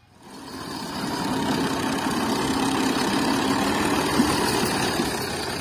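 New Holland 480 Special tractor's three-cylinder diesel engine running steadily, fading in over the first second.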